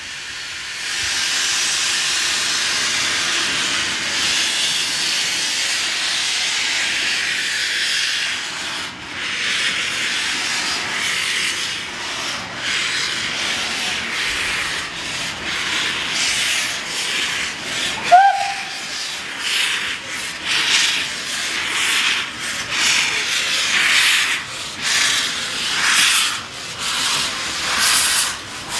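Class O4 2-8-0 steam locomotive 63601 hissing steadily, then pulling away with its cylinder drain cocks open: exhaust chuffs, each with a blast of steam, come slowly at first and then quicken. A brief shrill tone sounds about two-thirds of the way through, the loudest moment.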